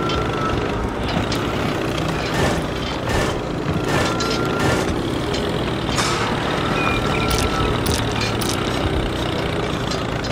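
Miniature toy tractor running steadily as it tows a roller attachment through sand, with an engine-like drone, scattered clicks, and a few brief high tones.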